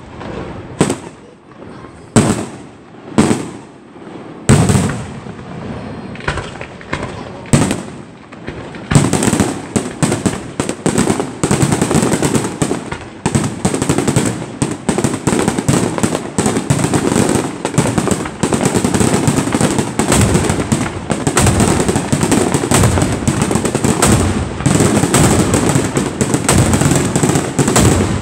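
Aerial fireworks display. Single shell bursts go off about once a second, then from about nine seconds in a dense, continuous barrage of bangs and crackling takes over.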